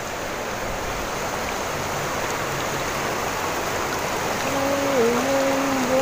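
River water rushing steadily over rocks and shallows. About four and a half seconds in, a steady pitched drone joins over it, dipping briefly in pitch.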